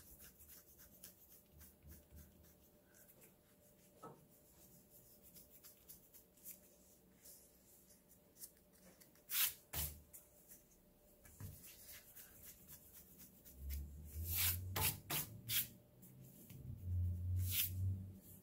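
Rubber eraser rubbing over paper to erase pencil lines, faint, with a few louder scrapes about ten seconds in and several more near the end.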